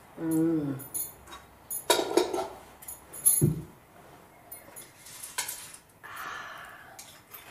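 A bowl and spoon being handled on a table: scattered clinks and knocks, with a dull thump about halfway through and a soft rustle near the end. A brief falling hum from a voice comes at the very start.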